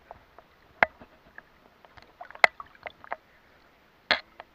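Shallow seawater lapping and splashing at the waterline, with a few sharp slaps of water about one, two and a half and four seconds in.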